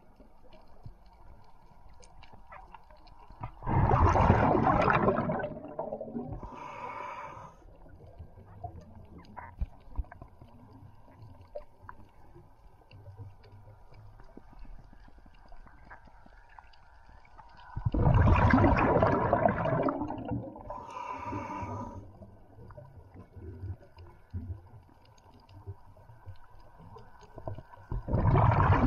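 A diver breathing underwater: loud gurgling bursts of exhaled air bubbles, each about two seconds long, come three times (about 4, 18 and 28 seconds in). The first two are each followed about a second later by a shorter, higher hiss, with low water noise in between.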